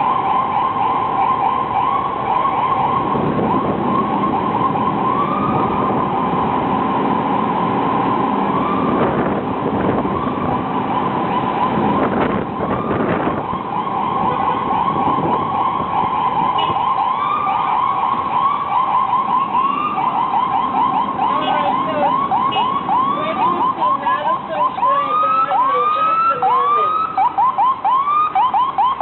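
Ambulance siren sounding in a fast yelp, its pitch rising and falling several times a second over traffic noise. Near the end a second siren with slower, wider sweeps overlaps it.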